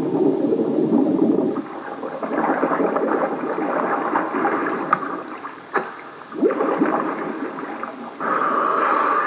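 Bubbling and gurgling of a scuba diver's exhaled air bubbles rising through water and breaking the surface, with a few sharp pops in the middle and a louder, higher bubbling near the end.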